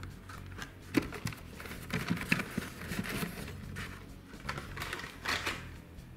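Plastic blister-pack toy car cards and cardboard being handled: a scattering of light clicks and rustles as one card is put away and the next is pulled from the cardboard shipping case.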